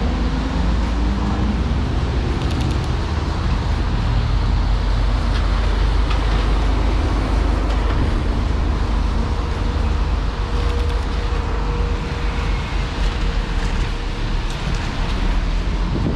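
Road traffic with a motor vehicle's engine running close by: a steady low rumble. An engine note rises near the start, and a faint steady whine holds for a few seconds past the middle.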